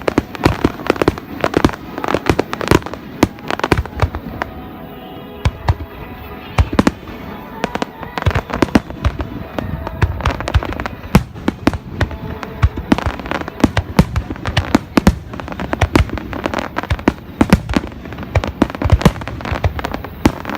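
Fireworks display with aerial shells bursting in rapid succession: dozens of sharp bangs and crackles, easing briefly about four to six seconds in before building again.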